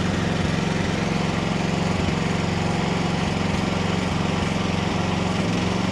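Small excavator's engine running steadily while the track drive is run in reverse to walk a thrown track back onto the drive sprocket.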